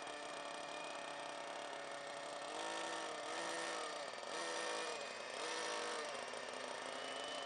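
Electric ducted fan of an RC model F-16 jet whining steadily in flight. In the middle its pitch dips and comes back up four times, each dip with a louder rush of air.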